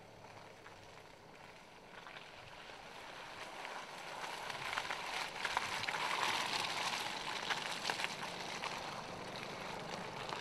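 Tyres of a Mercedes GLK 250 BlueTEC SUV crunching and crackling over loose dirt and stones as it drives past close by. The sound grows louder as the vehicle approaches and is loudest about six seconds in.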